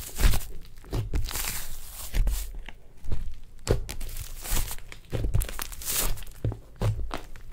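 Hands kneading, pressing and folding a large batch of thick slime. It makes irregular crackles, pops and squishes, with a couple of longer stretching, tearing sounds.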